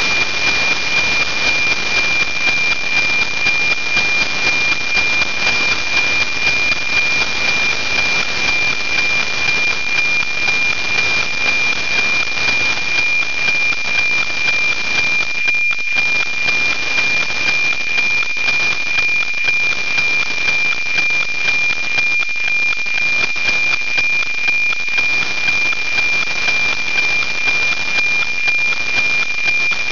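NOAA 19 weather satellite's APT downlink, FM-demodulated to audio: a steady high tone near 2.4 kHz under heavy hiss, with a regular twice-a-second ticking from the image lines. The hiss is strong because the satellite is only about 5 to 7 degrees above the horizon and its signal is still weak.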